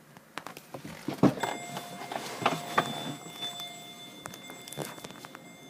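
Knocks, clicks and rustling of someone shifting about in a car's front seat and getting out, the sharpest knocks about a second and two and a half seconds in. A faint steady high tone sounds from about a second and a half in.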